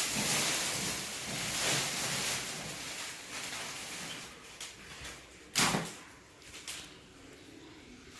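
A new refrigerator and its packaging being handled: a long rustling scrape, then a sharp knock about five and a half seconds in and a lighter one a second later.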